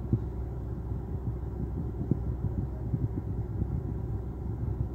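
Low, steady rumble inside a car's cabin while it waits at idle, with faint irregular low knocks scattered through it.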